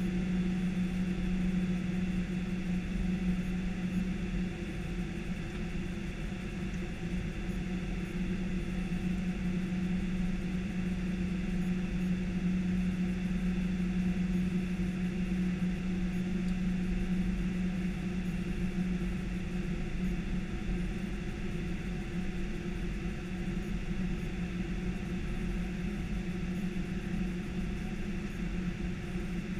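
Steady flight-deck noise of an Airbus A319 descending on approach: even airflow rush with a strong steady low hum, unchanging throughout.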